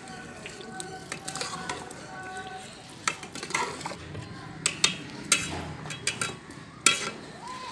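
Long metal ladle stirring rice into meat curry in a metal cooking pot, with scraping and a string of sharp clinks against the pot's sides and rim. The clinks come thicker in the second half, the loudest near the end.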